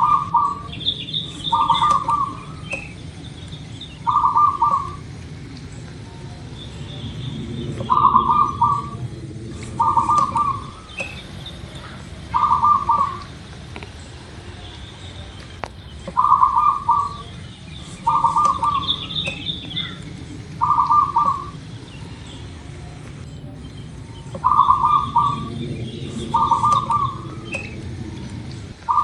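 Zebra dove (perkutut) cooing its song: short, rapid trilled coos in groups of three about two seconds apart, each group repeating roughly every eight seconds. Fainter high chirps of small birds and a low steady rumble lie beneath.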